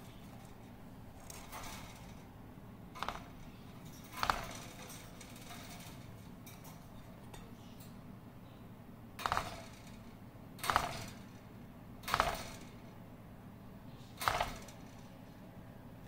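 Cockatiels in a wire cage making six short, sharp sounds, spaced irregularly a second or more apart, over a faint steady background.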